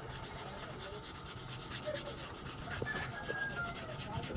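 Stiff hand brush scrubbing the finned core of a clogged truck radiator, in quick back-and-forth strokes at roughly four to five a second, loosening caked dirt from between the fins.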